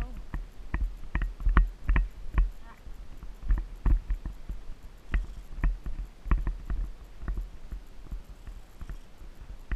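Hooves of an Icelandic horse striking a sandy dirt trail: a quick, uneven run of dull thuds and sharp clicks, about two to three strong beats a second.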